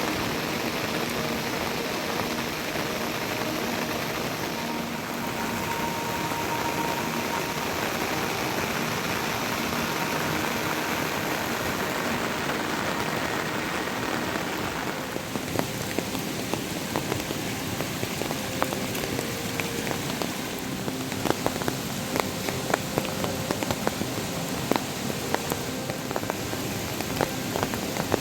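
Heavy rain falling steadily as a dense hiss. About halfway through, the hiss thins a little and close drops start hitting a surface as sharp, irregular taps.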